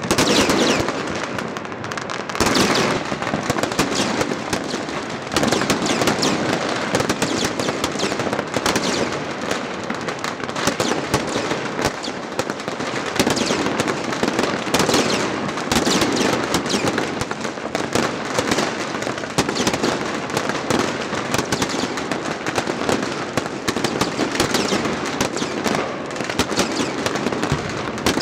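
Chinese New Year fireworks going off in large numbers across a city: a dense, unbroken crackle of overlapping bangs and pops, with louder bursts now and then.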